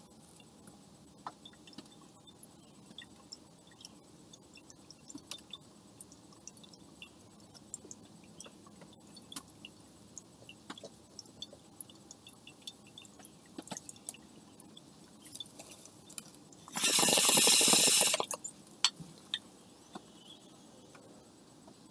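Glass water bong bubbling softly as it is lit and smoked, with scattered small clicks and ticks. About seventeen seconds in comes a loud rush of air lasting just over a second.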